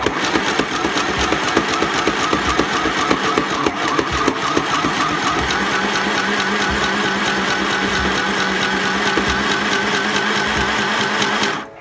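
Mini electric sewing machine stitching fabric in one continuous run: a steady motor hum under a rapid, even needle clatter. It stops abruptly near the end.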